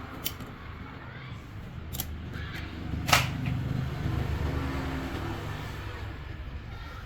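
A few sharp metal knocks, the loudest about three seconds in, over a steady low mechanical hum.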